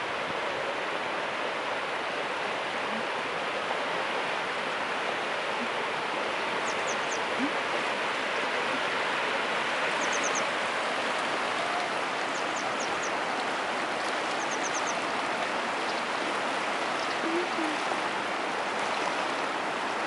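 Shallow river running over rocks and riffles, a steady rushing hiss. A small bird gives short high chirps in quick groups of three or four, several times.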